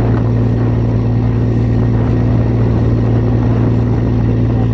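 Boat engine running steadily, a constant low drone that does not change.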